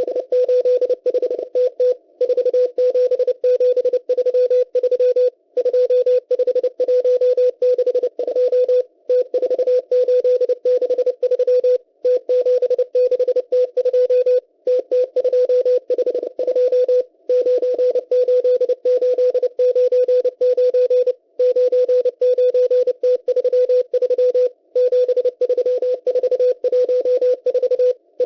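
M12 Russian number station sending groups of numbers in Morse code on shortwave: a single steady beep tone keyed on and off rapidly, with short pauses between groups, over a narrow band of radio static as heard through a web SDR receiver.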